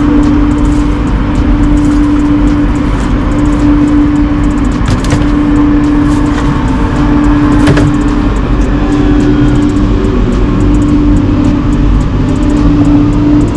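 A steady mechanical hum at one pitch over a low rumble, with a couple of sharp clicks of metal trays being handled about five and eight seconds in.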